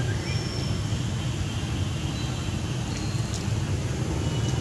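Steady low background rumble, with a few faint short high-pitched tones and a couple of light clicks about three seconds in.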